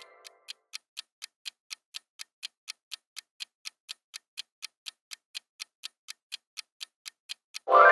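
Quiz countdown timer sound effect ticking evenly, about four ticks a second. A ringing chime fades out at the start, and a loud ringing chime sounds near the end.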